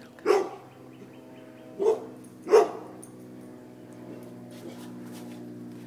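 Dog barking three times, one bark then two close together about two seconds in, in alarm at a mounted deer head.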